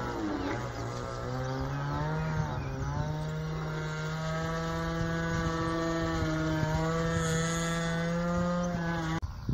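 Glow-fuel engine of a Yak-55M radio-controlled aerobatic model plane in flight, running at a high steady pitch after wavering up and down in the first couple of seconds. It cuts off suddenly near the end.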